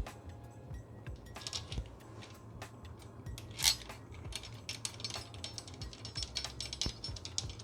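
Small metal parts clinking and clicking irregularly as engine-guard bolts, washers and tools are handled, with one sharper clink about halfway through.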